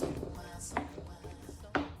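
Background music with two sharp knocks about a second apart, each with a short ring.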